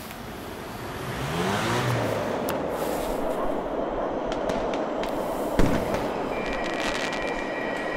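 City road traffic: a vehicle engine rises in pitch as it accelerates about a second in, then settles into a steady traffic rush. A single thump comes a little after halfway, and a steady high tone enters near the end.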